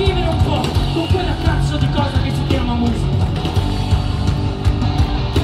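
Rock band playing live, loud and steady, with electric guitars.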